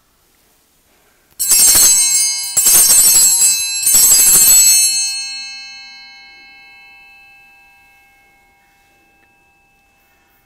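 Altar bells rung at the elevation of the host during the consecration: three loud shaken peals about a second apart, starting about a second and a half in, the last ringing on and fading out over several seconds.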